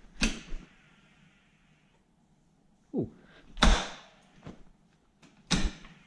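Toyota transfer case being shifted into four-wheel drive by its floor lever: a few sharp metallic clunks, one near the start, a louder one past halfway and another near the end.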